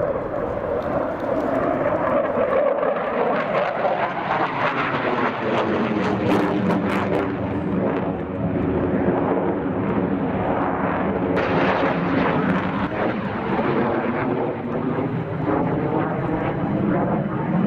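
JF-17 Thunder fighter's single Klimov RD-93 turbofan flying a display overhead. Loud, continuous jet noise whose pitch sweeps up and down as the jet passes and turns, turning brighter and harsher about two-thirds of the way through.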